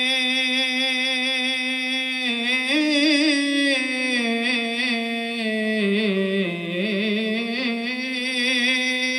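A man singing a devotional ghazal. He holds one long steady note for about two seconds, then moves into a wavering, ornamented melisma that dips lower and climbs back.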